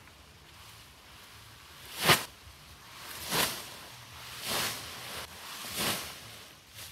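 Bundles of cut leafy grass dropped and tossed onto a pile: four rustling swishes about a second and a quarter apart. The first lands with a thud and is the loudest.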